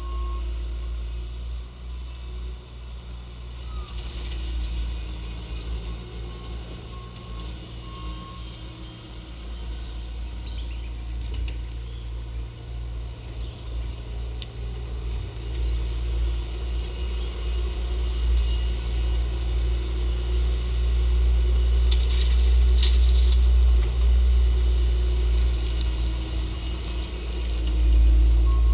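Bobcat T870 compact track loader's diesel engine running under work, louder in the second half, with its reversing alarm beeping in short spells.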